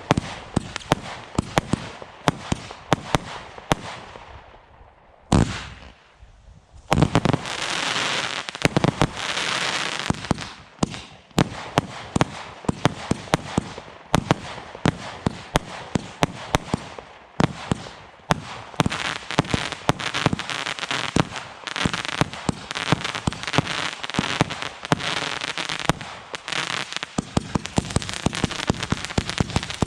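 Black Cat 'After Midnight' aerial barrage firework cake firing shot after shot: rapid sharp launch and burst bangs over a dense hiss. There is a short lull with a single bang about five seconds in, then the firing resumes.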